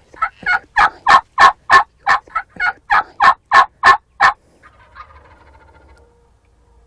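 Turkey yelping: a long run of about fourteen sharp, evenly spaced yelps, roughly three a second, loud and close.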